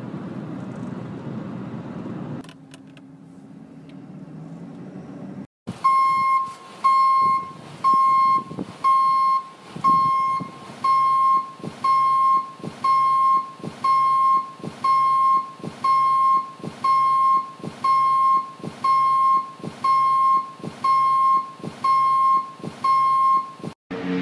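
Electronic beeper sounding one steady high tone about once a second, each beep about half a second long, from about six seconds in to near the end. Before it, a car's cabin rumbles with road noise at highway speed.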